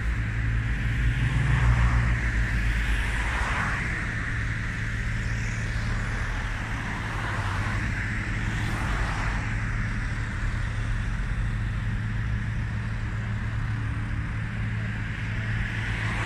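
Road traffic: cars passing one after another over a steady low rumble, the loudest pass about two seconds in.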